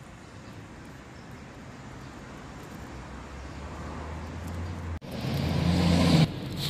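A motor vehicle's engine hum growing steadily louder over several seconds as it comes near, then dropping off suddenly near the end.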